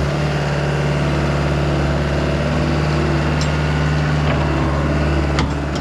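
CAT 242B skid steer's diesel engine running steadily at a constant speed.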